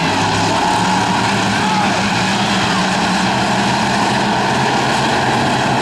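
Several bomber-class race cars running together at full throttle around the oval, their engines blending into one loud, steady drone.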